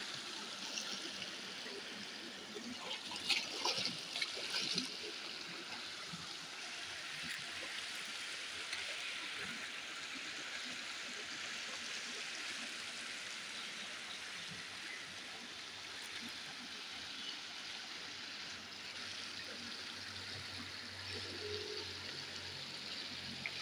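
Shallow irrigation-canal water spilling over the lip of a low concrete weir: a steady rush of water. A few sharper, louder sounds come about three to five seconds in.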